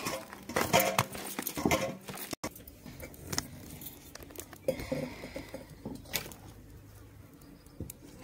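Light clinking and tapping for the first two seconds. Then wood burning in a clay mud stove (chulha), crackling faintly with a few sharp pops.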